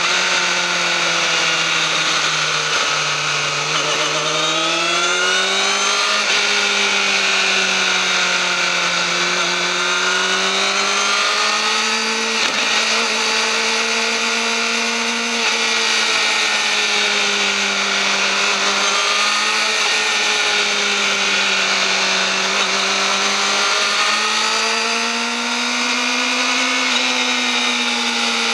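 Yamaha YZF-R6's inline-four engine through its stock exhaust, running at high revs, its pitch drifting slowly up and down with no break.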